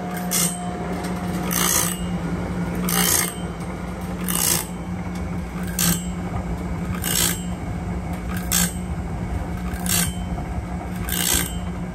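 Range Road RR5055 band sawmill blade sharpener running: a steady motor hum, with its CBN grinding wheel rasping briefly across each tooth of a Wood-Mizer 10-degree double-hard band blade about every one and a half seconds as the blade is indexed tooth by tooth. This is a slow, light first pass around a previously sharpened blade, just taking a little off each tooth.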